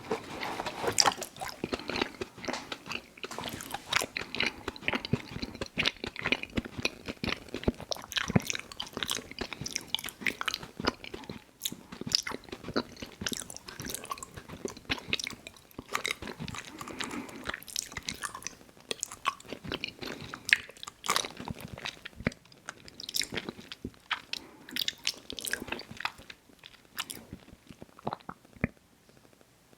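Chewing and mouth sounds from eating Little Debbie Birthday Cakes snack cakes close to the microphone: a dense run of sharp clicks and wet smacks. It thins out and stops about two seconds before the end.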